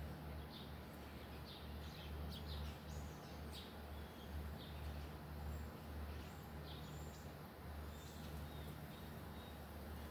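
Baby squirrel making a string of short, high squeaks at irregular intervals, the contented sounds of a happy young squirrel, over a low steady hum.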